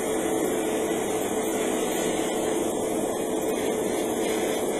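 Steady hum and hiss of an airbrushing setup running: a motor holding one constant tone under a continuous rush of air as paint is sprayed.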